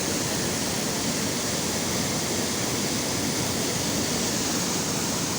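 Rainwater flowing: a steady, even rush of running water.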